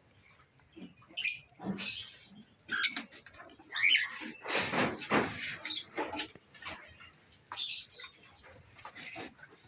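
Cockatiels giving short chirping calls at irregular intervals, some sliding in pitch. There is a louder rustling sound about five seconds in.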